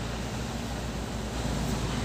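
Light diesel truck's engine running steadily as it approaches on a dirt road, getting a little louder about a second and a half in.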